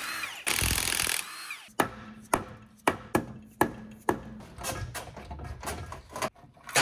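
A Milwaukee cordless drill-driver runs briefly on a crankcase bolt. It is followed by a string of sharp, irregular knocks and clinks, about ten, as the aluminium crankcase halves of a Porsche GT3 flat-six are worked apart by hand.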